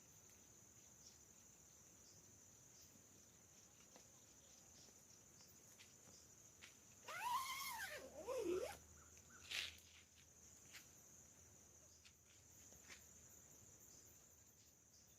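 Steady high insect drone, with an animal call about seven seconds in: two falling, pitched cries, the loudest sound here, followed by a short sharper note a second later.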